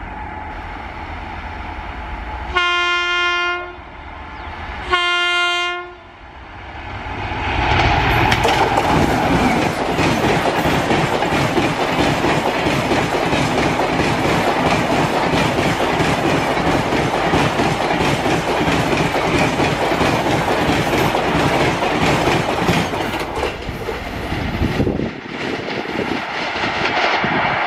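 WAP-7 electric locomotive of the Rajdhani Express sounding its horn twice, two blasts of about a second each, as the train closes in with a low rumble. The train then passes at high speed, about 130 km/h, its coaches giving a loud rushing noise with fast wheel clatter over the rail joints, easing off near the end.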